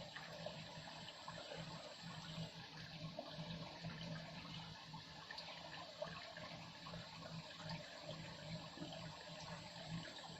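Low, steady rush of flowing river water.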